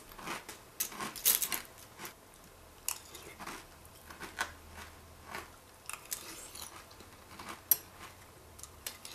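A person chewing a mouthful of Kellogg's Raisin Bran Crunch cereal in milk, with irregular crunches and a few sharp clicks of a metal spoon against the bowl.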